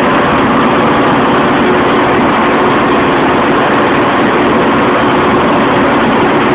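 Bulldozer's diesel engine running very loud and steady under load while the dozer pushes rubbish with its blade down in first gear.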